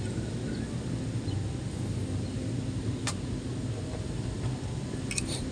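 A steady low rumble with a constant hum in it, and a couple of faint clicks about three seconds in and near the end.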